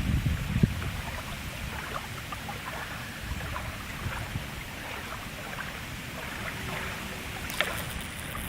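Outdoor ambience: a steady hiss with light wind rumble on the microphone, scattered faint ticks and crackles, and one sharp click near the end.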